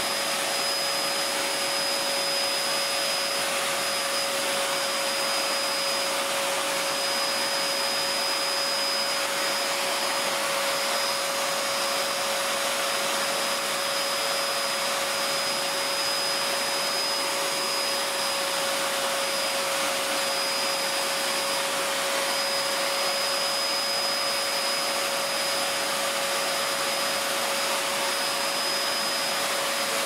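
Hoover Telios vacuum cleaner running steadily: a constant rush of air with a steady high whine from the motor, unchanging throughout.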